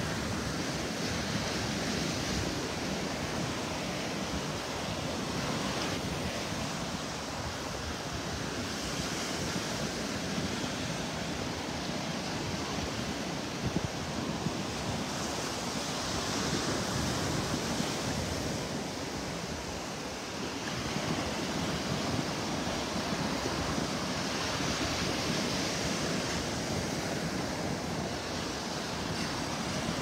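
Ocean surf breaking and washing up a sandy shore, swelling and easing every several seconds, with wind on the microphone.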